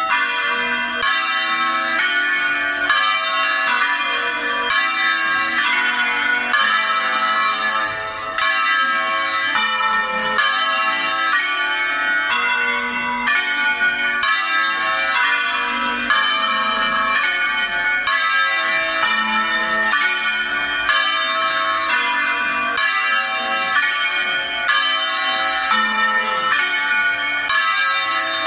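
Church bells of a six-bell Veronese-style ring in A-flat, rung by hand, striking one after another in a continuous peal of roughly two or three strikes a second, the overlapping bell tones ringing on between strikes.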